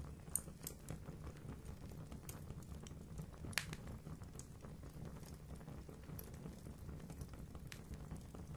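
Fire burning in a fireplace: a steady low rush with scattered crackles and pops, the sharpest about three and a half seconds in.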